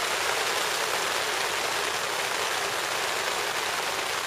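Rain falling steadily on the fabric of a tent, heard from inside it.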